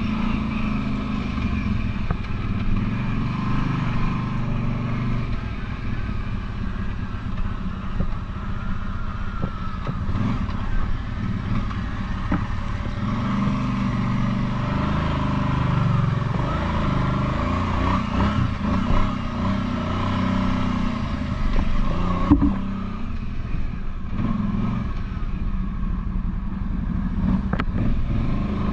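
Kawasaki Brute Force 750 ATV's V-twin engine running under changing throttle, its pitch rising and falling, with occasional knocks and clatter.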